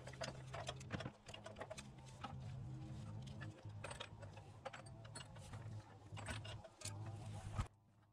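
Faint metal clicks and scrapes of pliers and a screwdriver working at the filter cap on a Haldex coupling, prying it loose, over a steady low hum. Everything cuts off suddenly near the end.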